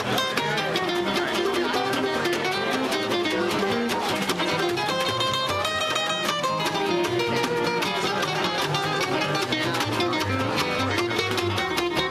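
Live gypsy jazz combo: an acoustic jazz guitar picks quick single-note runs over guitar accompaniment and an upright bass.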